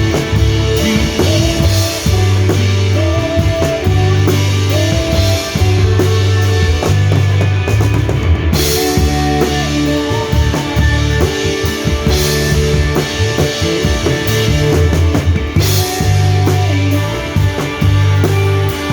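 A band playing live: a drum kit drives a rock-style worship song with cymbals, under a sustained bass line and a higher melody line.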